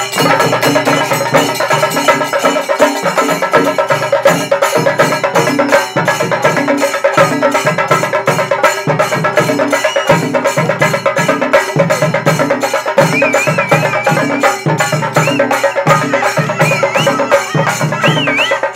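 A troupe of stick-beaten temple drums playing a fast, dense rhythm together, with ringing metal hand cymbals. A high wavering whistle-like tone comes in over the drumming in the second half.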